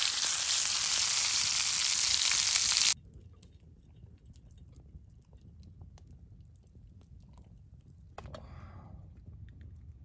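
Meat sizzling loudly in a frying pan over campfire embers, stopping abruptly about three seconds in. After that it is quiet, with faint scattered ticks and a brief soft clatter near the end.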